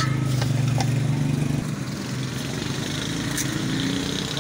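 A small combustion engine running steadily, louder for the first second and a half and then quieter. A few light clicks sound over it.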